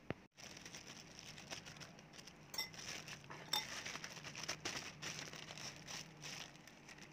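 A thin plastic bag crinkling and rustling as hands knead clown knifefish paste inside it. A metal spoon clinks sharply against the bowl right at the start and a couple more times a few seconds in.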